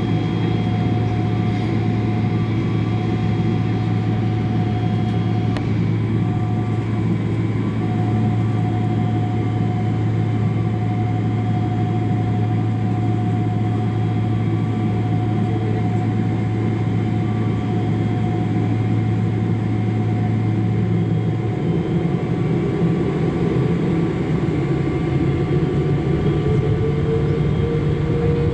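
Boeing 777-300 jet engines heard from inside the cabin: a steady low hum with several held tones. About three-quarters through, the hum shifts and a rising whine begins as the engines spool up, typical of thrust being set for takeoff.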